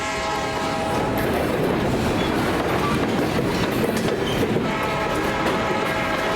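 Diesel locomotive horn blowing for a grade crossing over the noise of a passing freight train. The horn breaks off about a second in, leaving the rumble and clatter of the train passing close by, and sounds again near the end.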